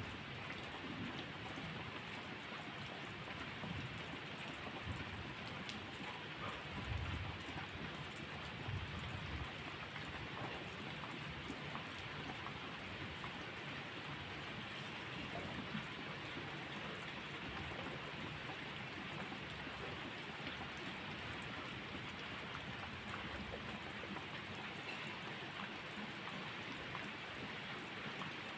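Steady heavy rain falling and pattering on surfaces, with a few low rumbles of thunder in the first several seconds.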